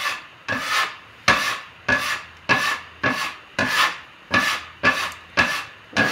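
Metal bench scraper scraping across a wooden pasta board in regular strokes, nearly two a second, cutting and gathering crumbly egg-and-flour mixture into a rough pasta dough.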